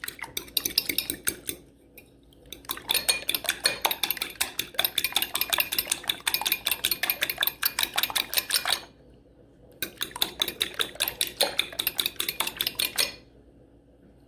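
Fork whisking three eggs in a small glass dish: rapid clinking strokes of the fork against the glass, in three runs with short pauses between them.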